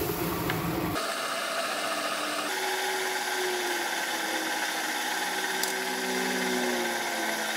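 Small electric motor-driven grain mill running while malted grain is poured into its hopper and crushed: a steady mechanical whir with the rush of grain. About a second in the low rumble drops away and the sound turns brighter.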